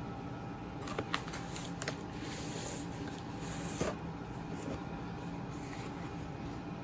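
Packaging being handled and rustled open, with a few sharp knocks, for about three seconds, then only a steady background hum.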